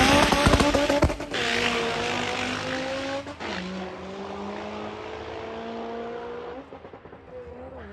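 Honda Civic engine under full throttle on a drag-strip pass. Its pitch climbs, drops sharply at each upshift (about one, three and a half, and six and a half seconds in) and climbs again, growing fainter as the car pulls away down the track.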